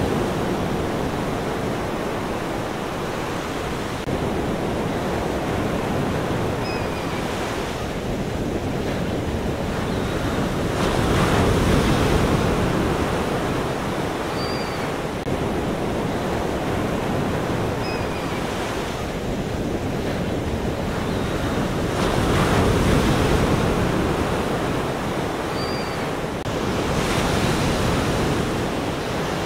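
Ocean surf: a continuous wash of breaking waves that swells louder and ebbs back about every ten seconds.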